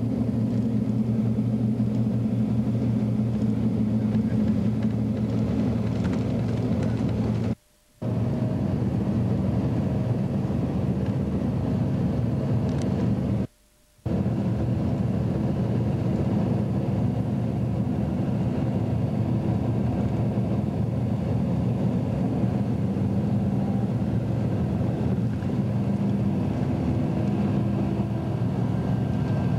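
Steady engine and road drone of a moving vehicle heard from inside its cabin, broken twice by a brief silence of under a second.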